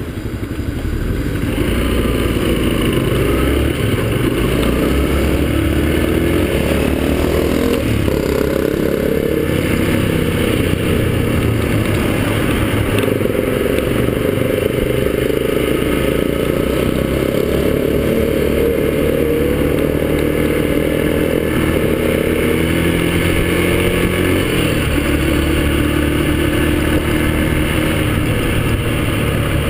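Yamaha XTZ 125's single-cylinder four-stroke engine running under way. It picks up over the first second or two, then runs on with its pitch shifting up and down as speed and gears change.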